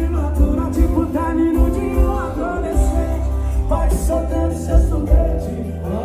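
A song with singing played loud through a car audio system, with a heavy subwoofer bass pulsing underneath the vocals.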